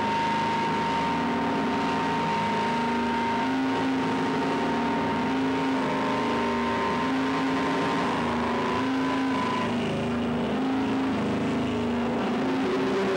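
Experimental noise-drone music: a dense, constant wash of noise with a steady high tone that ends about ten seconds in, over lower held tones that switch back and forth in pitch.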